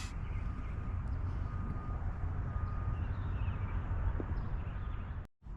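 Steady low background rumble with a few faint high chirps, dropping out briefly near the end.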